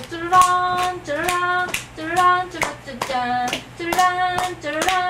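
Audience clapping along in a steady rhythm, about two claps a second, to a tune with long held notes.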